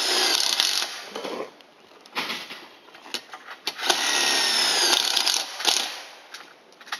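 DeWalt cordless impact driver running self-tapping bolts into a metal solar-panel mounting rail to join two rail sections. It makes two long runs, one at the start lasting about a second and a half and another starting about four seconds in lasting nearly two seconds, with short bursts between.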